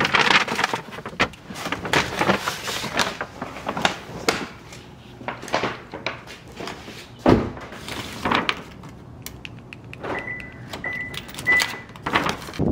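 Brown paper shopping bag rustling and crinkling as it is handled and carried. A car door shuts with a single thud about seven seconds in, and three short high beeps sound near the end.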